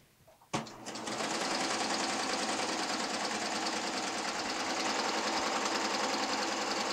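Baby Lock serger stitching a three-thread overlock over fabric-wrapped cording with a piping foot. A click about half a second in, then the machine starts and runs at a steady, fast stitching rhythm.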